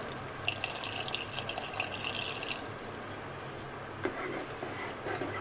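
Vinegar poured from a bowl into a pan of thick, hot chili sauce, a trickling splash lasting about two seconds. It is followed by faint stirring near the end.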